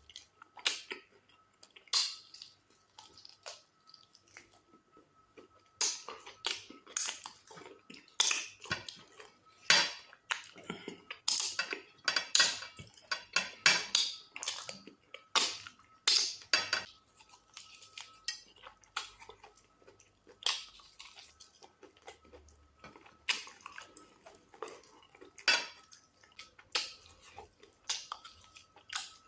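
Irregular clinks and taps of dishes and cutlery while eating a meal of fufu and black soup, with a faint steady high tone in the background.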